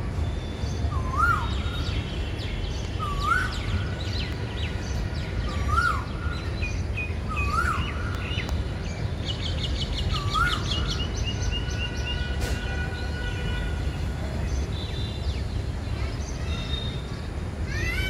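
Several birds calling and singing in a tree canopy. One bird repeats a short rising-and-falling whistle about every two seconds, while others add higher chirps and a quick run of repeated notes around the middle, over a steady low rumble of background noise.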